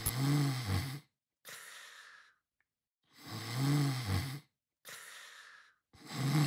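A man snoring in his sleep: low, buzzing snores on the in-breath about three seconds apart, two full ones and a third starting near the end, each followed by a softer breathy out-breath.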